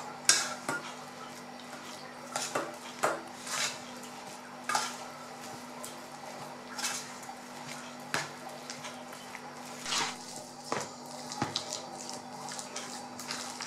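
Metal spoon stirring a thick chicken, egg and béchamel mixture in a stainless steel bowl, clinking and scraping against the bowl in irregular strokes.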